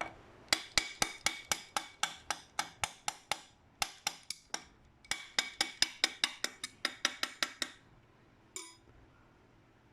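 Hammer striking metal on an old mud pump, fast ringing blows at about four a second in three runs with short pauses, then one last blow. The part is stuck and the blows are meant to break it free.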